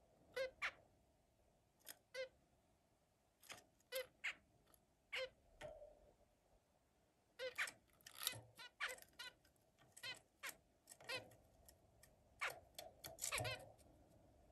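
Zebra finches giving short repeated calls, often in quick pairs, coming more often from about halfway through.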